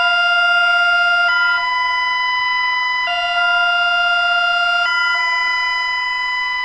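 Electronic emergency alert alarm tone: a chord of steady tones that switches back and forth between two pitches about every one and a half to two seconds, in a hi-lo siren pattern. It starts abruptly and sounds loud throughout.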